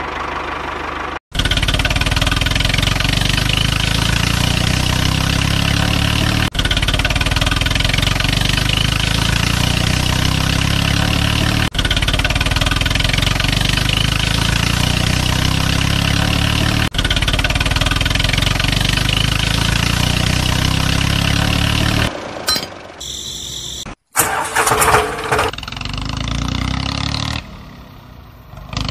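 Engine running steadily, a repeating recorded sound effect with a faint seam about every five seconds. It starts abruptly just after a second in and cuts off about 22 seconds in, followed by a few shorter, different noises.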